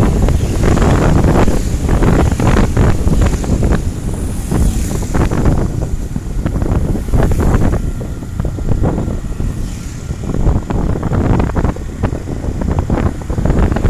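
Wind buffeting the microphone of a moving vehicle in gusts, over a steady low road and engine rumble.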